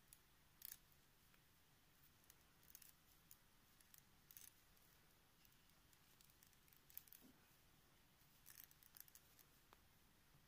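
Faint, irregular clicks of metal circular knitting needles tapping together as stitches are knitted off one needle onto the other, in an otherwise near-silent room.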